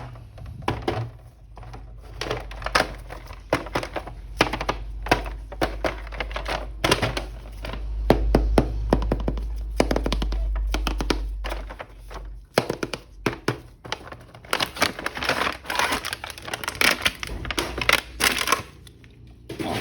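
Hands unpacking an action-figure toy: a run of clicks, knocks and crinkling of its packaging, busiest in the last few seconds, with a low rumble for a few seconds in the middle.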